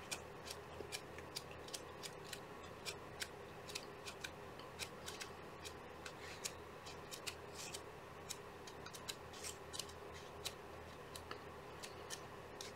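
Thin pages of a paperback coloring book being flicked over one after another: a run of faint, sharp paper ticks and snaps, irregular, about two or three a second.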